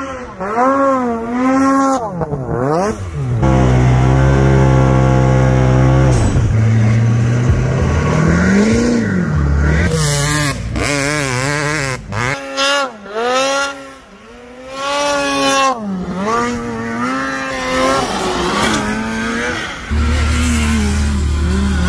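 Off-road vehicle engines revving up and falling back again and again, with several abrupt cuts between clips: a snowmobile, then a dirt bike, then a side-by-side UTV near the end.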